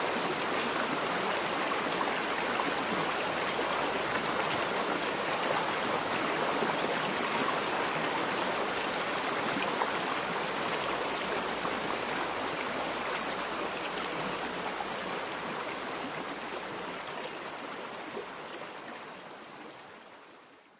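A forest river flowing with a steady rush of water, fading out over the last few seconds.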